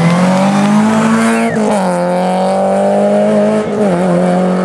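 Renault Clio rally car engine revving hard as the car accelerates out of a bend. The pitch climbs, drops at an upshift about a second and a half in, climbs again and drops at another upshift near the end.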